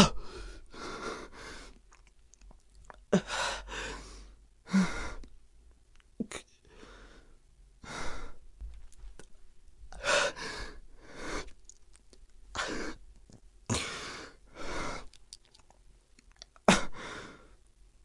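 A person breathing hard in pain: ragged, noisy in-and-out breaths every second or two, one of them with a short moan.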